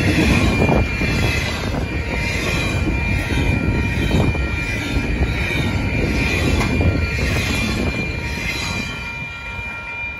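Canadian Pacific freight cars rolling past a level crossing, with a steady rumble of wheels on rail that swells every second or two as wheel sets pass. The crossing's warning bell rings steadily over it. The rumble fades near the end as the last car clears the crossing.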